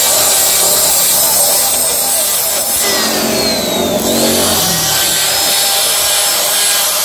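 Electric die grinder running at high speed, its rotary burr grinding out the aluminium bore of a Mikuni motorcycle carburetor to port it. The steady whine dips in pitch around the middle of the cut.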